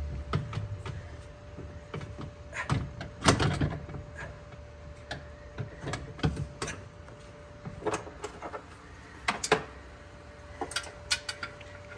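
Steel tilt-seat frame being worked into a UTV's seat base by hand: scattered metal clanks, knocks and scrapes, the loudest cluster about three seconds in, over a faint steady hum.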